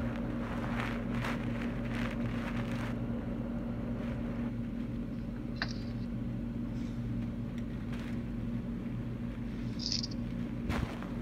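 Steady low electrical hum with a background hiss, broken by a few faint clicks and two short high chirps about six and ten seconds in.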